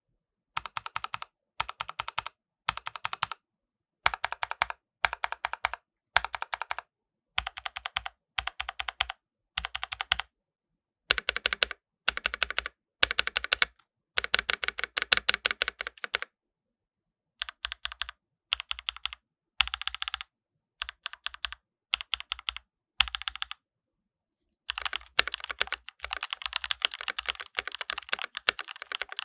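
Zion Studios Zen67 mechanical keyboard being typed on in short runs of rapid keystrokes separated by brief silent pauses. Near the end the typing runs on without a break.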